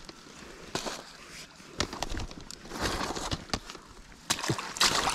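Irregular rustling and scattered clicks and knocks of a trap cage being handled.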